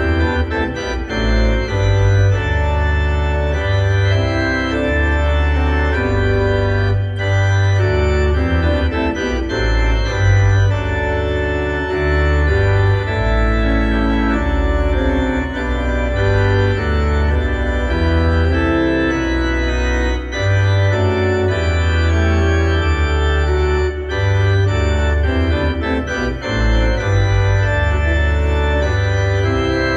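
Organ music: slow, held chords that change every second or two over a deep bass line.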